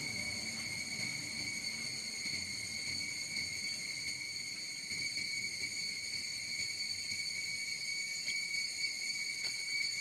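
Steady, high-pitched insect drone: one unbroken held tone with overtones above it.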